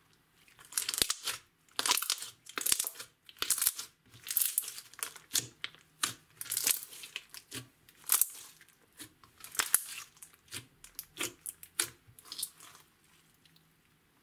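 Neon purple clear-based slime, mixed with glitter and small beads, being stretched, folded and pressed by hand. It gives a quick run of short squishing and popping sounds, one or two a second, which die away near the end.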